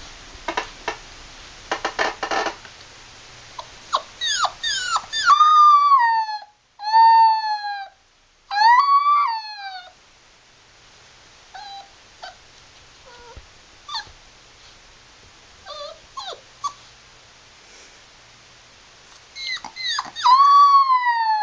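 A puppy howling: drawn-out howls that each sag in pitch at the end, broken by short yips and whimpers. There is a quieter stretch of small yips in the middle, then the howling starts again near the end.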